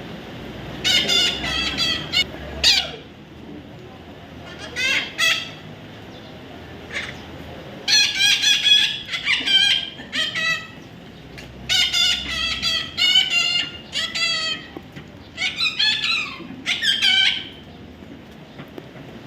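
Baby parrot calling in a series of short, harsh, repeated cries, coming in five bouts of one to three seconds with pauses between.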